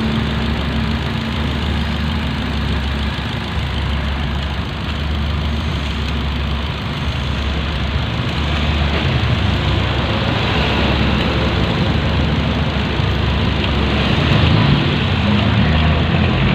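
Ford EcoSport engine idling steadily, kept running on its alternator while the battery terminals are connected.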